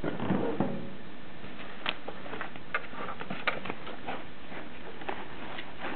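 Packaging being handled: the media player's white protective wrapping rustles and crinkles as it is lifted out of its box, with scattered light clicks and taps.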